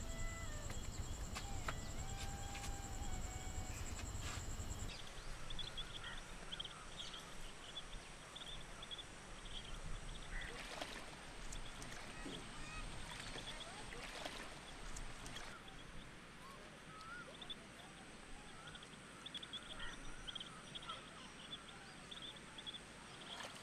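Pond-side ambience: many short, high bird chirps over a steady thin high insect whine, with a couple of light water splashes from wading in the middle. A low rumble fills the first few seconds and cuts off abruptly about five seconds in.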